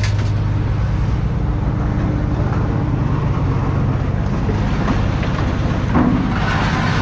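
An engine running steadily with a low, even hum, with a few faint knocks of metal.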